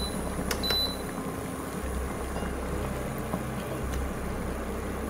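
Water boiling in a pot on an induction hob, over the hob's low hum, which steps up in spells of about two seconds. Near the start, two short high beeps from the hob's touch controls.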